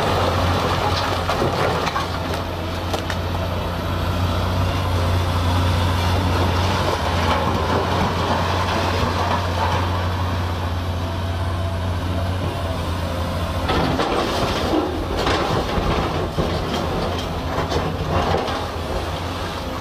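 Large Caterpillar hydraulic excavator's diesel engine running under load with a steady low drone, while its bucket digs and scrapes through blasted rock. Rocks clatter against the steel bucket, more sharply in the second half.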